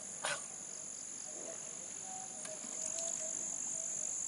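Steady, high-pitched insect chorus, with one short burst of noise about a third of a second in.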